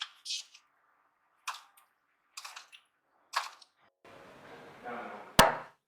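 Short scrapes and clinks of a serving spoon against a plate, about one a second, then a longer stretch of rough handling noise ending in one sharp, loud click.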